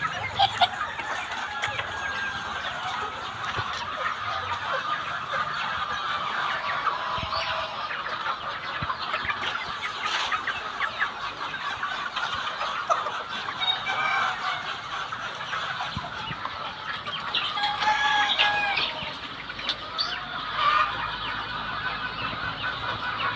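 A shed full of caged kampung chickens clucking and calling together: many short, overlapping calls in a continuous chatter.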